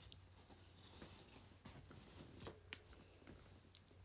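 Faint rustling of a long-sleeved top's fabric as it is handled and laid out flat, with two small sharp clicks, the first about two and a half seconds in and the second a second later.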